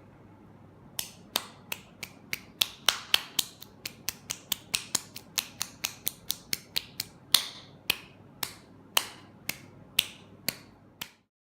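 A rapid, uneven run of sharp clicks or taps, about three a second, starting about a second in and stopping shortly before the end.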